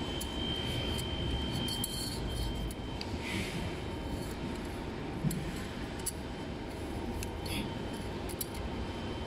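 Small clicks and rubbing as cables and plastic connectors are handled and fed down an electric scooter's hollow metal stem tube, over a steady background hum.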